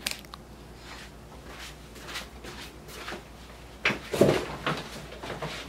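Quiet room, then a few knocks and rustles about four seconds in as an office swivel chair is pulled out and sat in.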